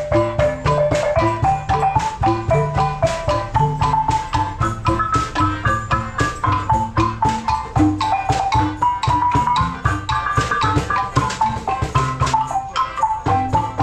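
Background music with a steady drum beat, a bass line and a moving melody.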